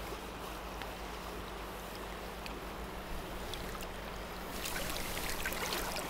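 Steady rush of a shallow freestone river running over stones, growing a little louder and hissier about four and a half seconds in.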